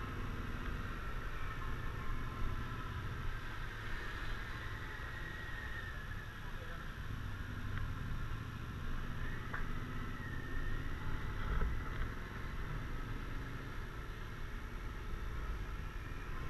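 Suzuki Burgman 650 maxi-scooter's parallel-twin engine running as it rolls slowly, heard from a camera on the bike: a steady low rumble with a whine that slowly drifts in pitch.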